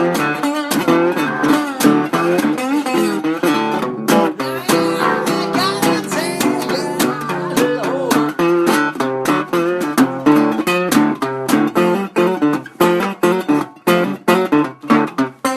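Guitar playing a blues passage with slide: fast picked notes with gliding pitches. Toward the end the notes thin out into separate strokes.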